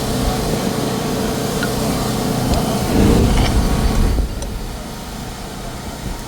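Steady drone of workshop machinery running, with a low hum and a few faint clicks of metal; it swells briefly and then drops noticeably in level about four seconds in.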